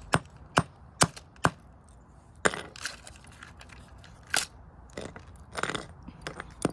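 Hammer blows smashing a Sylvania alarm clock: four quick strikes about half a second apart, then a string of scattered, longer cracking and crunching hits.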